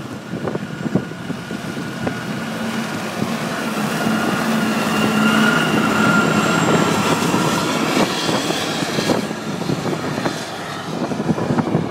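Cat 990H wheel loader's C27 V12 diesel engine running under way with a steady whine as the machine drives past, growing louder to a peak in the middle and then easing off as it moves away.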